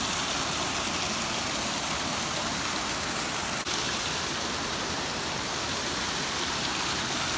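Steady rush of flowing water from a mountain stream, an even hiss with no break, a brief drop in level about halfway through.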